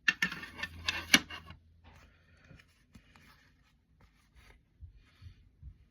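Plastic cassette tapes and their packaging being handled and set down: a quick run of clicks and scraping in the first second and a half, sharpest about a second in, then faint scattered rustles and light taps.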